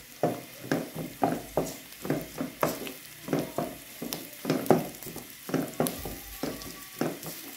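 Wooden spoon stirring diced onion, carrot and capsicum in a nonstick karahi, scraping the pan about three times a second, over a light sizzle of butter and oil as the vegetables sauté.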